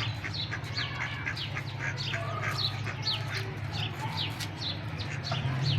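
Baby poultry peeping: many short, falling chirps, quick and overlapping, over a steady low hum.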